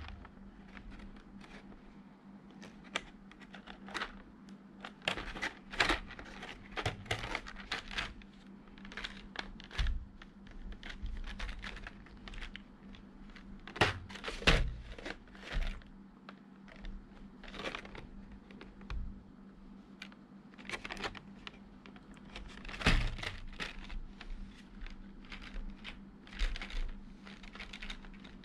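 Clear plastic blister tray crinkling and clicking as it is handled and turned in the hands, in irregular crackles throughout, loudest about halfway through and again about four-fifths of the way in.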